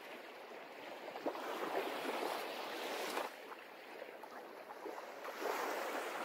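Sea waves washing on a shore: a rushing surf that swells and ebbs, falls away abruptly a little past three seconds in, then builds again.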